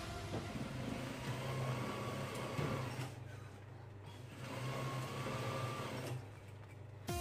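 Juki industrial sewing machine running as it stitches a seam in umbrella canopy fabric, in two spells of a couple of seconds each with short pauses between.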